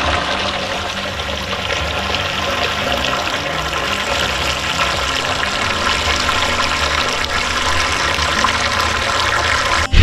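Liquid slurping and gurgling as a submersible pump sucks the last of an herbal liquid fertilizer from the bottom of a rubber tub. The rush of water runs steadily and stops abruptly near the end.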